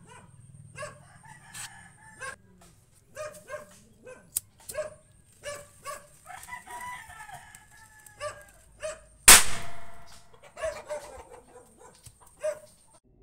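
A mini triangle firecracker (0.2 size) going off with a single sharp bang about nine seconds in, after its slow-burning hair fuse burns down.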